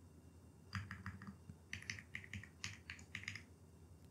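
Faint typing on a computer keyboard: a quick run of keystrokes entering a password, starting under a second in and stopping a little over three seconds in.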